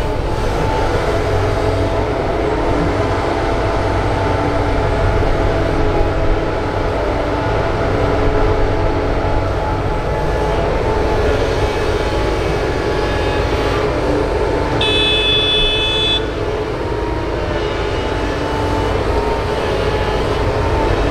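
Doosan DX225LCA hydraulic excavator's diesel engine running steadily under load, its pitch wavering slightly as the hydraulics work the boom and bucket. About three-quarters of the way through, a single high-pitched tone sounds for about a second.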